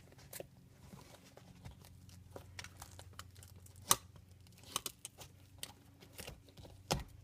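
Duct-taped cardboard being handled: scattered crinkles, taps and small clicks, the sharpest about four seconds in and another near the end.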